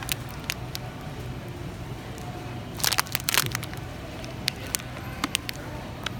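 Clear cellophane candy bag crinkling as it is picked up and handled, with a loud burst of crackles about three seconds in and a few scattered crinkles after, over a low steady hum.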